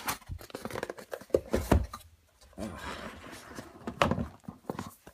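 Cardboard box being opened by hand: a few knocks and taps, a scraping, rustling slide in the middle, and a sharper knock about four seconds in.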